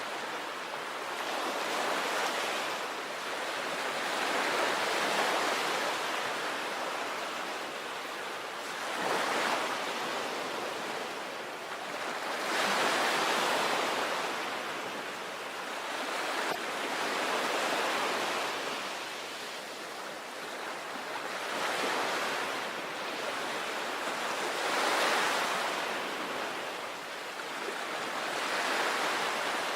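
Sea waves breaking and washing on a shore, the surf swelling and easing every three to four seconds in a steady rhythm.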